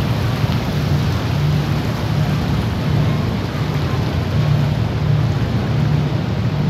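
Car ferry's engines running under way as it pulls away from the pier: a loud low hum that swells and eases every second or so, over a steady rush of churned water and wind.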